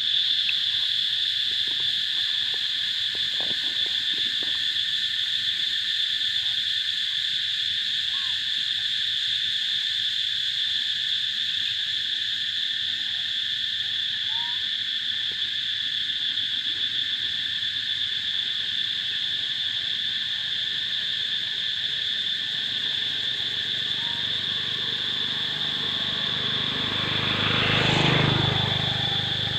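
Steady, continuous high-pitched chorus of insects, with a swell of noise near the end that rises and fades over about two seconds.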